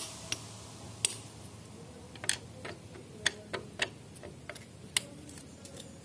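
Irregular sharp metallic clicks of a T-handle socket wrench being fitted and turned on the oil filter cover bolt of a Yamaha FZs engine, about ten clicks spaced unevenly over several seconds.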